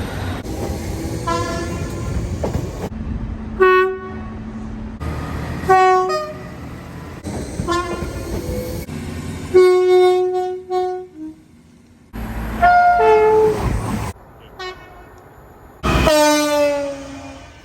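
Train horns sounding a string of about eight short blasts at different pitches, several cut off abruptly. Low rumble runs underneath, and the last blast slides down in pitch near the end.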